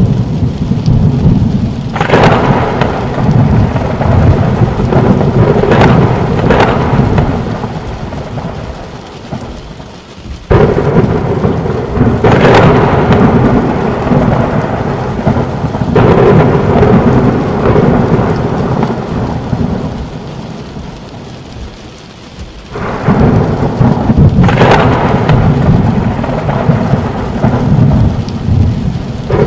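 Thunderstorm: rolling thunder rumbling almost without break over steady rain, with several sharp claps. The loudest claps break in suddenly about a third of the way through and again about three quarters through, and the rumble ebbs between peals.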